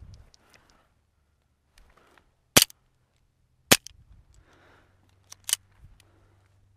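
Airsoft pistol shots: three sharp cracks about a second apart, starting about two and a half seconds in, with a softer crack just before the last one, and faint rustling in between.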